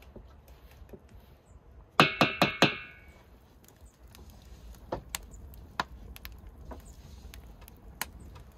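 About five quick, loud metallic taps of a utensil against a stainless steel mixing bowl, each ringing briefly. After them comes the quiet crackle of a wood fire burning in a brick oven, with scattered small pops.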